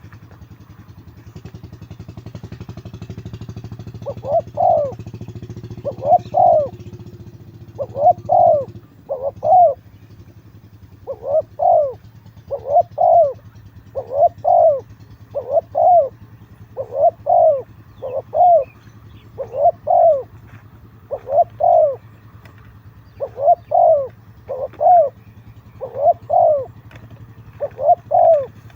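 Spotted doves cooing: short two-note coos repeated about every one and a half seconds, with a low engine hum underneath that stops about nine seconds in.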